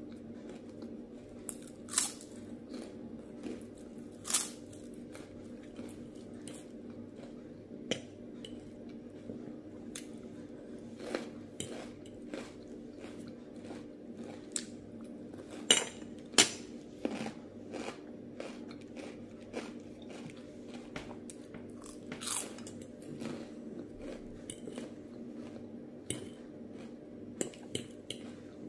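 Close-miked chewing and crunching of raw salad vegetables and a crispy snack: irregular sharp crunches with softer chewing between, the loudest two coming close together about halfway through, over a steady low hum.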